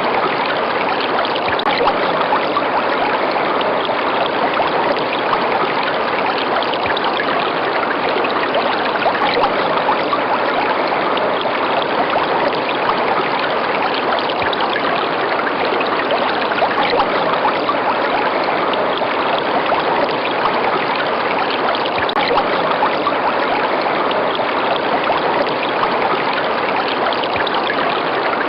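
River water flowing and babbling over rocks in a steady, even rush.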